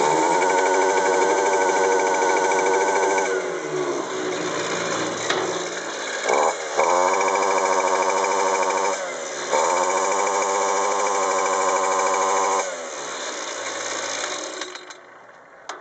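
Petrol string trimmer engine being revved up to high speed in three long bursts, dropping back toward idle between them. Near the end it winds down to idle and stops.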